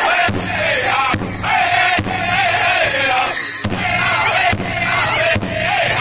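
Powwow drum group of several men singing together in high, wavering voices while striking a large shared drum in unison, roughly one beat each second.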